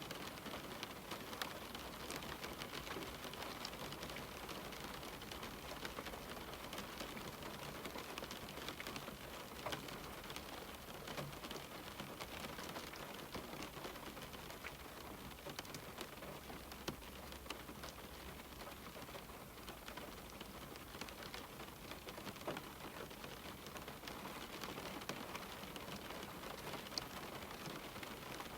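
Steady rain falling on a window, an even hiss of rainfall with many small drops tapping on the glass.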